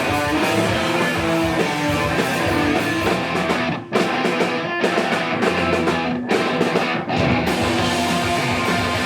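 Live rock band playing loud, guitar-driven music with no vocals, broken by a few short, sharp stops in the middle.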